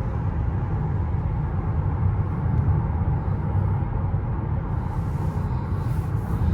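Steady low road and tyre rumble inside the cabin of a moving Mercedes-Benz S580, with a faint hiss coming in about five seconds in.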